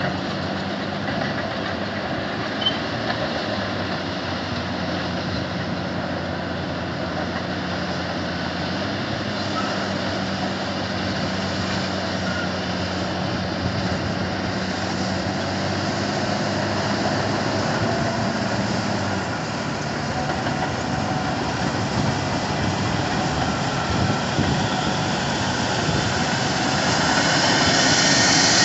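Caterpillar D10N dozers and 651E scrapers working together on an earthmoving cut: a steady, heavy diesel drone with a low hum that holds until about two-thirds of the way through. It grows louder near the end as a 651E scraper passes close by.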